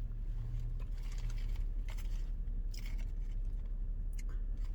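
Faint scattered crackles and crunches of eating a crispy fried chicken biscuit and handling its paper wrapper, over a steady low hum.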